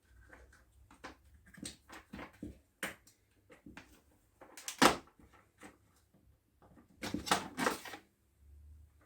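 Scattered clicks and knocks of tools and parts being handled while working on a chainsaw, with one sharper knock about five seconds in and a short run of clatter near the end.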